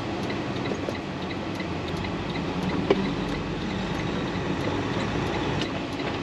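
Western Star semi-truck's diesel engine running steadily inside the cab as the truck pulls away, its driver working the manual gearbox. A single sharp knock about three seconds in.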